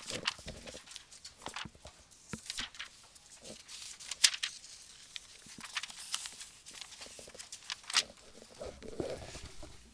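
Book pages being leafed through: scattered paper rustles and light taps, with sharper clicks about four seconds in and again about eight seconds in.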